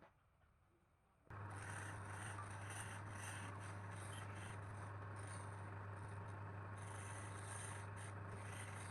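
Electric wood lathe running with a steady motor hum that comes in abruptly about a second in, with a turning tool scraping the spinning wood.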